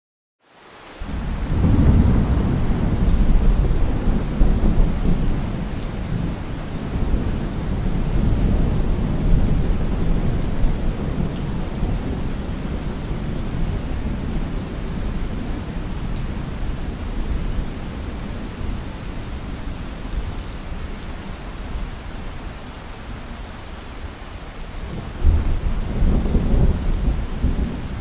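Thunderstorm: steady heavy rain with rolling thunder. The sound fades in over the first second, a long deep rumble runs from about two seconds in, and a new clap of thunder breaks out about three seconds before the end.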